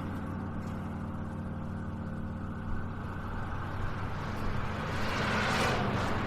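A steady low humming drone with a band of hiss above it, and a noisy swell that builds and then fades about five to six seconds in.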